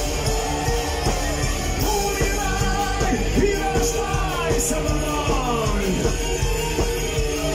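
Live rock band playing an instrumental passage: drums, bass and electric guitars under a violin melody with sliding notes.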